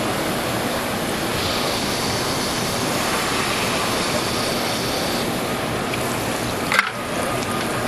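Royal Master TG-12x4 CNC centerless grinder running an infeed grind with coolant pouring over the wheels: a steady rushing hiss of coolant and machine. A higher hiss comes in for about four seconds in the middle, and there is one sharp click near the end.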